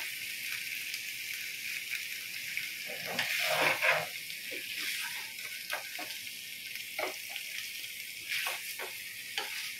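Paneer cubes and masala gravy sizzling in a kadhai while a spatula stirs them, with a steady sizzle and scattered scrapes and clicks of the spatula against the pan.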